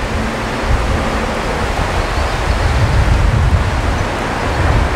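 Wind buffeting the microphone: a loud, steady rushing hiss with uneven low rumbling gusts.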